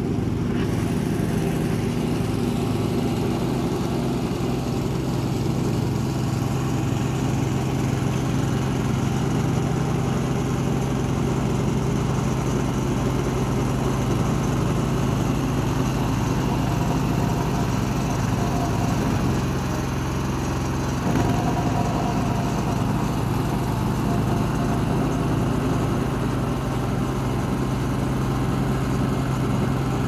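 Small engine of a Mikasa walk-behind double-drum roller running steadily. Its note dips briefly and picks up again about two-thirds of the way through.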